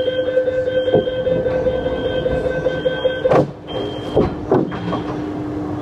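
Beijing subway train standing in the station: a steady hum, over which a held electronic tone sounds. The tone cuts off about three seconds in with a sharp thump, and a couple of short sliding sounds follow.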